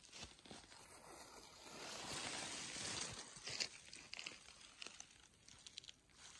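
Footsteps rustling and crunching through dry leaf litter and twigs on a forest floor, with a few sharp little cracks; the rustling swells for a second or so a couple of seconds in.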